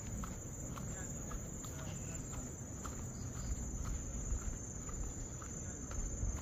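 Insects calling in one steady, high-pitched trill, with a low rumble underneath and a few faint short chirps.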